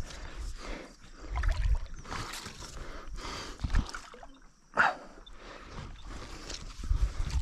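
Water splashing and sloshing around a stand-up paddleboard as it is paddled through shallow water, in irregular strokes.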